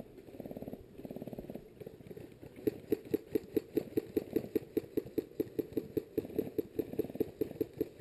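Airsoft gun firing: two short rapid bursts, then a steady string of shots about five a second that runs for several seconds.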